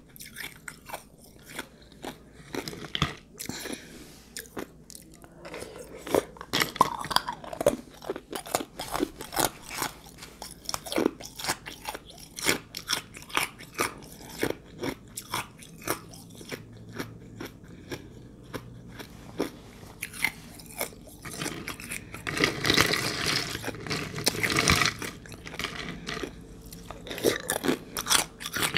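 Ice being chewed close up, a rapid run of sharp, crisp crunches. A denser, louder stretch of crunching comes in the last third.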